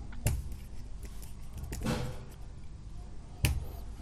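A few keystrokes on a computer keyboard: two sharp clicks about three seconds apart, with a softer sound between them.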